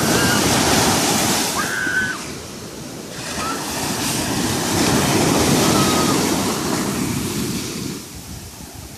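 Ocean surf breaking and washing up the sand, swelling in two surges, the second starting about three seconds in.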